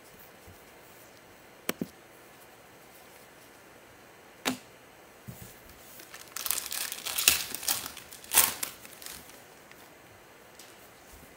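Foil wrapper of a Prizm football card pack being torn open and crinkled by gloved hands, in a dense burst of crackling about six seconds in lasting some three seconds. Two short sharp taps come before it.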